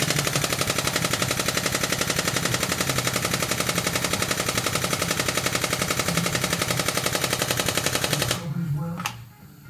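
Powered hydraulic pump chattering in rapid, even pulses, about ten a second, as it pressurises a hollow hydraulic ram to press out a rusted cylinder pin; it stops abruptly about eight seconds in, followed by a single sharp click.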